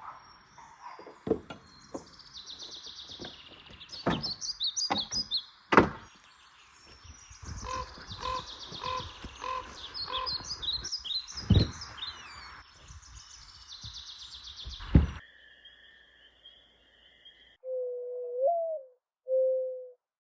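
Small songbirds chirping, with scattered sharp wooden knocks as split firewood pieces are handled and stacked. About halfway a run of five evenly spaced low notes sounds, and after a lull near the end comes a low, wavering held tone.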